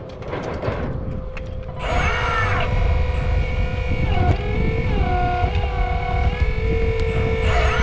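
A 1/8-scale 385CF RC hydraulic excavator's pump motor whining while it works. The whine sets in strongly about two seconds in, and its pitch dips and recovers several times as the hydraulics take load, over a low rumble.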